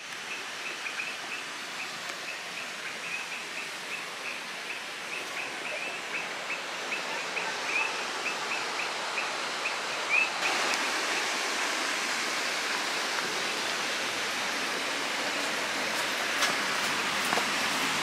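Steady rush of flowing water from a backyard stream and waterfall, growing fuller about ten seconds in. A fast run of short high chirps sounds over it for the first ten seconds.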